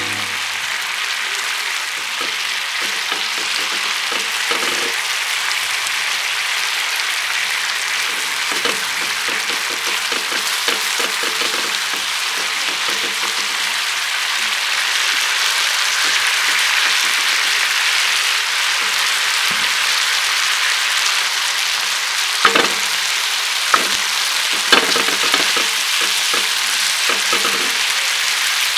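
Food sizzling in a frying pan, a steady hiss that grows a little louder partway through, with a few sharp clicks of a utensil against the pan near the end.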